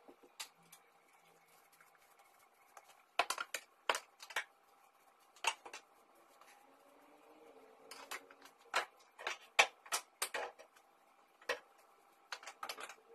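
Irregular sharp knocks and clatters, about a dozen, from a broom being worked over a hard tiled floor and knocking against the floor and furniture. They come in two bunches, with the loudest a little after halfway.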